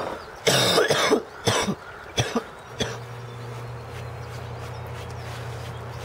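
A man coughing and clearing his throat in several short bursts during the first half, followed by a steady low hum.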